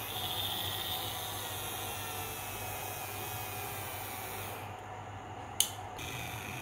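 Small electric headlight-leveling motor whirring with a faint high whine as it tilts a bi-LED projector down, stopping about four and a half seconds in. A sharp click follows about a second later.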